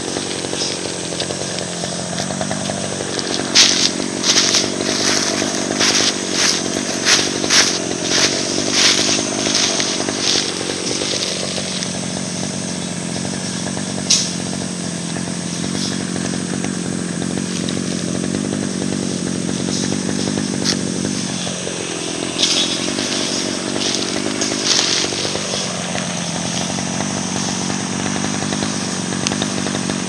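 A small engine running at a steady speed; once, about two-thirds of the way in, its pitch drops and comes back up. Over it, dry leaves crackle and rustle in a run of short bursts in the first third, and again briefly later.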